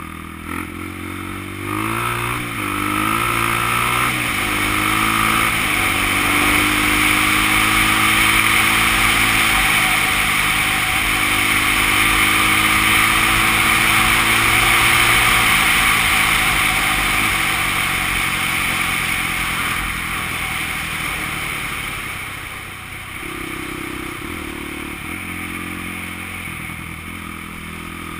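Honda XR200's air-cooled single-cylinder four-stroke engine under way, the revs rising and falling through the gears at first, then holding steady at speed under a loud rush of wind on the microphone. Near the end the revs drop as the bike slows.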